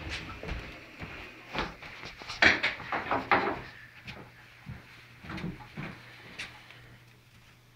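Irregular knocks and clatters of handling at a stainless-steel kitchen sink while a wet chicken is dried with a towel, bunched about two to three and a half seconds in and again around five and a half seconds.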